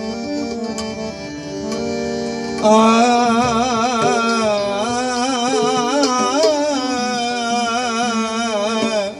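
Bhajan music: a harmonium holding steady chords, then about two and a half seconds in a singer comes in on one long held note with a wide vibrato, which breaks off just before the end.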